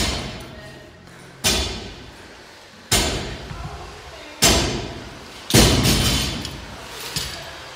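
Dumbbell hitting a rubber gym floor on each rep of dumbbell snatches: five heavy thuds about every second and a half, then a lighter one near the end, each echoing in the large room.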